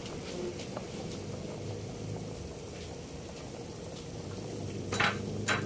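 Pot of pork and broth boiling hard, a steady bubbling with a low hum under it. Two sharp clicks about half a second apart come near the end.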